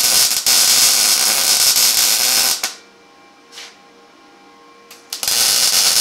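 Electric arc welding on steel: the arc's steady crackling hiss runs for about two and a half seconds and stops, a brief burst follows about a second later, and welding starts again near the end.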